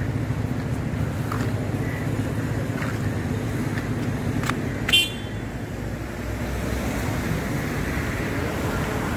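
Steady street traffic rumble, with a short car horn toot about five seconds in.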